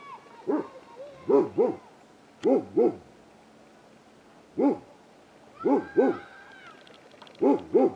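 Short hoot-like animal calls repeated every second or two, mostly in quick pairs, with a higher call near the middle.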